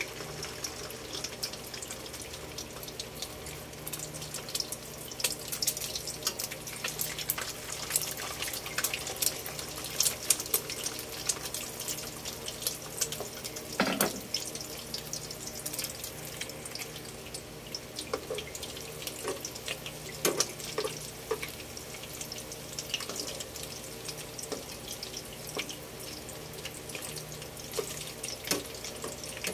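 Egg batter patties sizzling in hot cooking oil in a nonstick wok: a steady hiss full of fine crackles.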